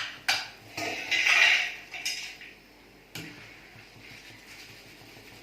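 A metal spoon clinking and scraping against a cooking pan while fried pieces are lifted out of hot oil. There are several clinks and a scrape in the first two seconds and one more clink about three seconds in.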